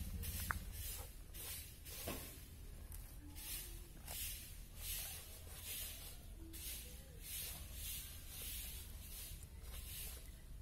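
Goat hide being pulled by hand off a hanging carcass, peeling away from the flesh in a series of short tearing hisses about every half second.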